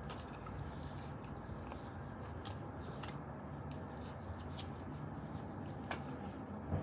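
Faint, scattered clicks and rustles from a small child working her feet into her shoes, over a low steady room hum.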